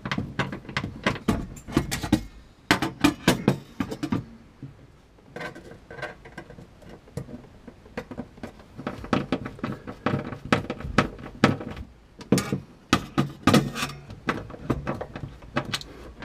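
Screws being driven by hand with a screwdriver into a metal compressor mounting bracket inside an icebox: irregular runs of clicks and knocks, broken by short pauses.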